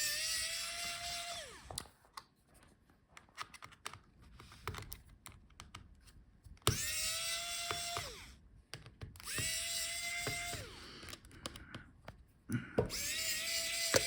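Small electric screwdriver backing out laptop heatsink screws in four short runs of about a second and a half each, the motor whine rising as it spins up. Light clicks and taps of handling fall between the runs.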